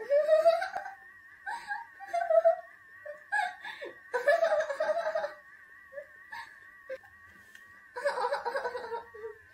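A young woman's ticklish laughter: bursts of giggling, squealing and moaning, breaking off and starting again several times, loudest near the start and about halfway through. Underneath, a steady, faint, slightly wavering whine from the electric scalp massagers running against her soles.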